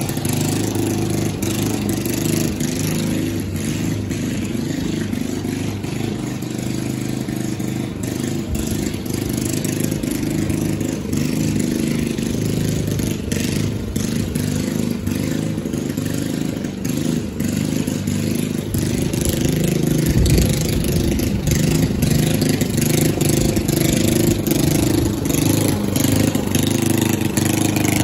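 Toro walk-behind lawn mower's small engine running steadily while mowing. It grows louder about two-thirds of the way through as the mower comes nearer.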